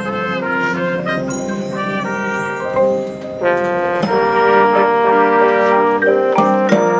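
High school marching band playing: brass sustaining chords, growing louder with a full entrance about halfway through, with a couple of sharp percussion hits near the end.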